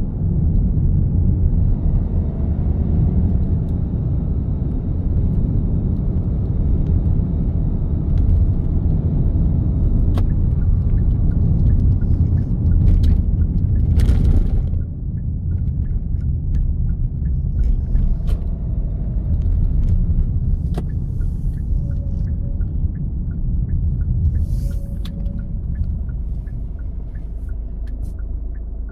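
Steady low rumble of a vehicle driving on the road, engine and tyre noise, with a brief hiss about halfway through.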